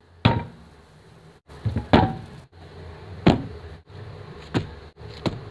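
Paint cans and a thinner tin being handled and set down on a table: six sharp knocks, two of them in quick succession, over a faint steady hum.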